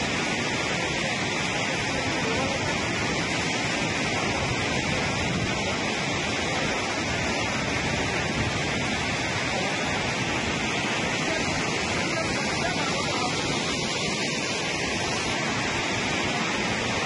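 Steady rushing of a river in flood, one even, unbroken noise.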